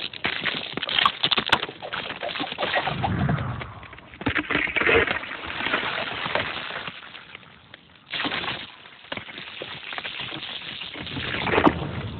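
Cartoon sound effects of glacier ice cracking and splitting, irregular sharp cracks over a noisy rumble that swells and fades, with a sudden louder surge about eight seconds in.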